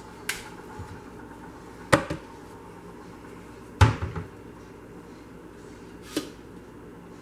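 Kitchen containers and utensils knocking and clinking on a counter and saucepan as ingredients are measured and poured: four short sharp knocks a second or two apart, the third the loudest with a dull thud, over a steady faint hum.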